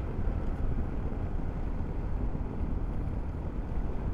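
Wind rushing over a microphone without a furry windscreen, mixed with a motorcycle's engine and road noise while riding. It is a steady, deep rumble with no let-up.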